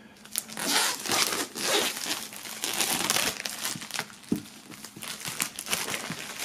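Clear plastic shrink-wrap film crinkling and crackling as it is pulled and peeled off a cardboard box, with irregular sharp crackles throughout.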